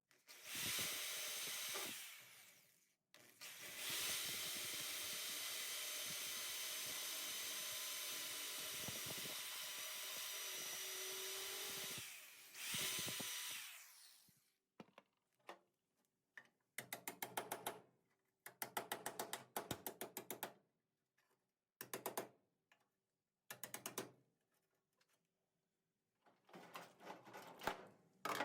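Power drill drilling out spot welds in the sheet-steel inner rocker: a short run, then a long steady run of about eight seconds, and another short run. In the second half come several short bursts of rapid clicks, each about a second long.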